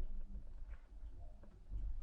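Washing machine heard from inside its drum during a lull between loud bouts: a faint low rumble with a few light ticks.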